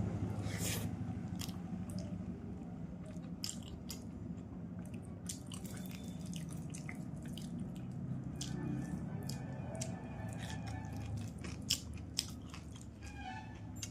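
Close-up eating sounds of a person chewing fish curry and rice, with many short wet mouth clicks and smacks scattered throughout.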